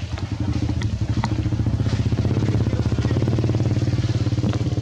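A small engine running steadily with a fast, even beat, with a few sharp clicks in the first second or so.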